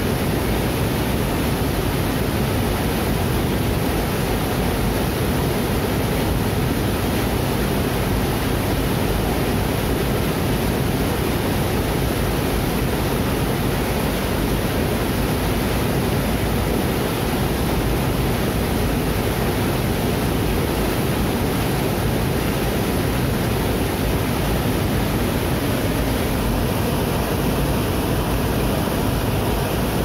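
A small waterfall cascading over boulders into a foaming pool: a steady, unbroken rush of white water.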